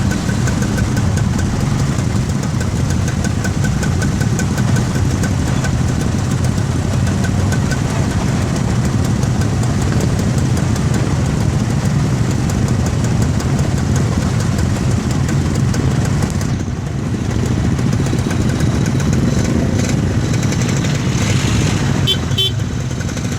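A motor engine running steadily, with a brief high beep or two near the end.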